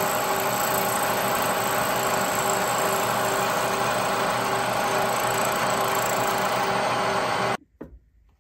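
Milling machine running with a slitting saw cutting a slit through a brass bushing: a loud, steady machining noise with a faint pulse a few times a second, stopping abruptly about seven and a half seconds in.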